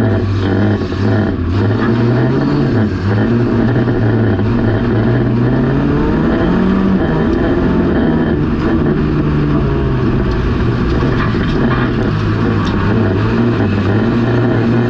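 Junior banger's engine heard from inside its stripped-out, caged cockpit, revving up and down as the car races on a shale oval, with noise from the tyres and body and a few short knocks and rattles.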